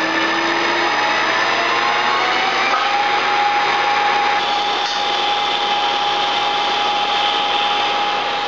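ACER E-series geared-head engine lathe running under cut while facing a metal disc, its spindle speed climbing under constant-surface-speed control as the tool moves toward the centre. The machine's tone rises slowly in pitch over the first few seconds, then holds steady.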